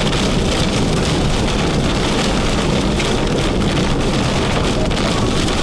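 Rain beating on a car's windshield and body in strong storm wind near a tornado, heard from inside the car as a steady loud rush.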